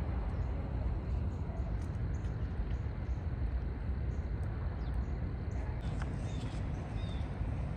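Outdoor park ambience: a steady low rumble, with a few short, high bird chirps in the last couple of seconds.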